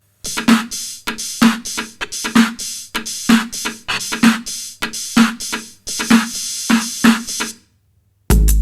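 Electronic drum-machine beat: a steady pattern of low hits just under once a second with sharper ticks between, stopping about seven and a half seconds in. A louder beat with heavy bass starts at the very end.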